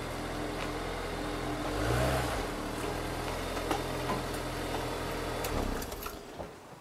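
Honda S2000's electric soft top folding down, its motor giving a steady low hum that swells briefly about two seconds in and stops about five and a half seconds in as the roof finishes stowing.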